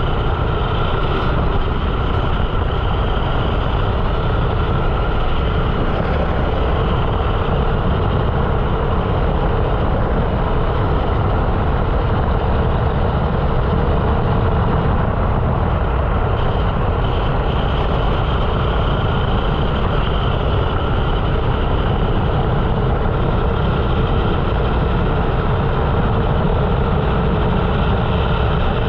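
A 13 hp rental kart's single-cylinder four-stroke engine running under load, heard from on board the kart; loud and steady, with no breaks.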